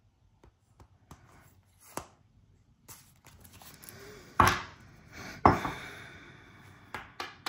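A deck of tarot cards handled over a wooden table: light card clicks and sliding, then two sharp knocks about a second apart, a little past halfway, as the deck is knocked on the table to square it, followed by a couple of lighter taps near the end.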